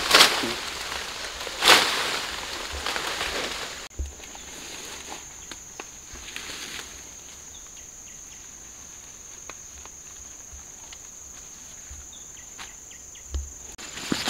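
Two loud crackling rustles of leaves and stems being handled in the first two seconds, then a steady high-pitched insect chirring, cricket-like, with scattered faint ticks and rustles.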